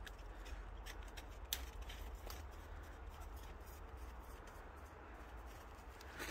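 Footsteps crunching and scraping in snow, with a few sharp clicks, the loudest about a second and a half in, over a low steady rumble.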